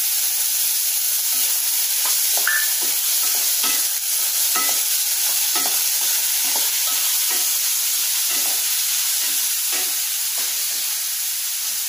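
Ridge gourd and chana dal frying in oil in a nonstick kadhai with a steady sizzle, while a spatula stirs and scrapes through them about twice a second.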